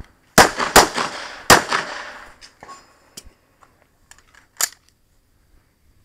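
Pistol shots: three loud shots in quick succession within the first second and a half, each ringing out briefly, then a much quieter sharp crack about four and a half seconds in.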